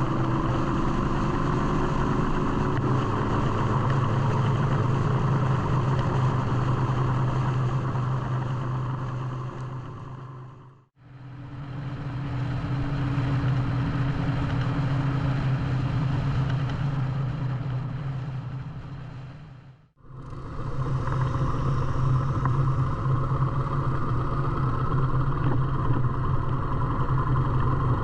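Motorcycle engine running steadily at cruising speed with wind and road noise, in three stretches joined by brief fades to silence, about eleven seconds in and again about twenty seconds in.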